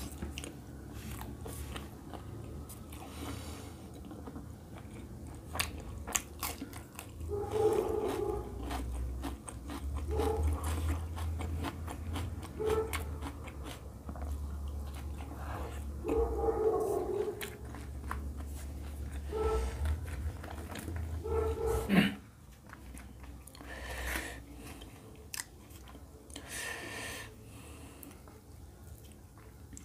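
Close-miked chewing of roti and egg curry: wet mouth clicks and smacks, with one louder sudden sound about two-thirds of the way through.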